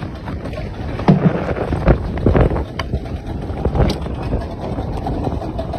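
Wind rushing over the microphone with water and boat noise, broken by several irregular knocks.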